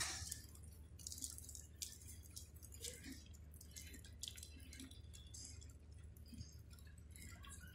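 Faint, irregular crackling and popping from an aluminothermic (thermite) rail-welding charge burning in its crucible, over a low steady hum.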